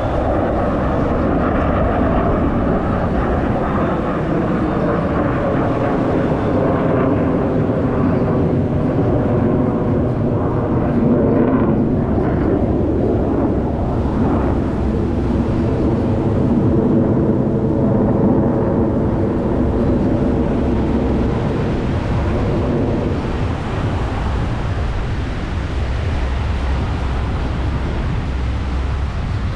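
Blue Angels F/A-18 Super Hornet jet engines, a loud continuous rush of jet noise. Through the middle it carries tones that sweep up and down in pitch as the jets move past.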